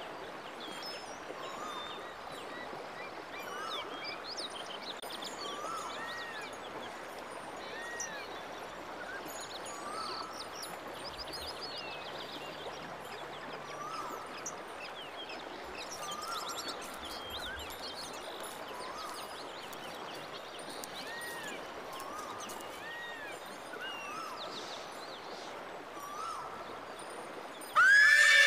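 Outdoor rural ambience: a steady background hiss with birds chirping short calls every second or two. Near the end a horse whinnies loudly.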